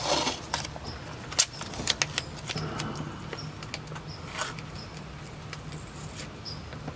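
Blue painter's tape being pulled and pressed onto the car's A-pillar trim to hold a small microphone: scattered crackles and light taps, busier in the first couple of seconds, over a low steady hum.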